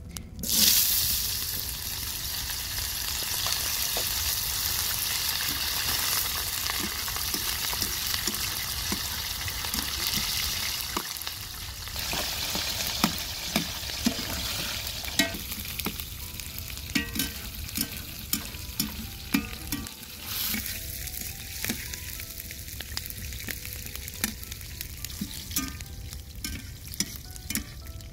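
Food tipped into hot oil in a wide metal pan, bursting into a loud sizzle about half a second in and frying steadily for about ten seconds. In the second half the sizzle is quieter, with many sharp pops and crackles over it.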